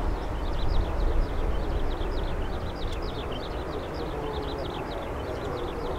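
Distant jet engines of a Boeing 767-300 taxiing, a steady rumble and hiss with a faint held whine. Over it a bird sings a fast run of short high chirps, several a second.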